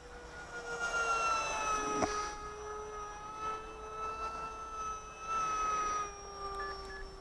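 Small electric RC pylon-racer model plane flying past, its motor and propeller making a steady high whine whose pitch drops as it passes about a second in and slides a little lower again near the end. A single short knock about two seconds in.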